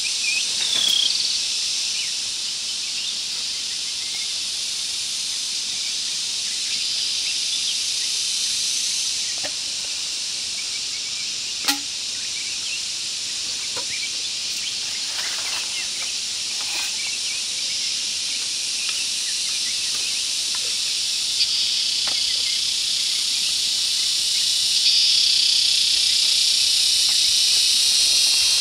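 Forest insects droning as a steady, high-pitched hissing chorus that swells slightly now and then, with a sharp click about twelve seconds in and another about twenty-one seconds in.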